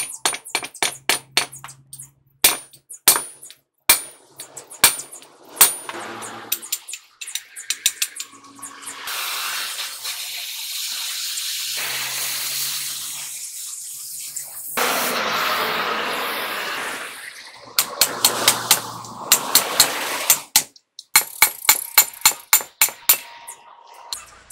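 Steel hammer blows on a drift and the truck's V-rod bearing eye, then the steady hiss of a gas cutting torch cutting the old bearing out of the eye, then more rapid hammer-and-chisel strikes on the steel near the end.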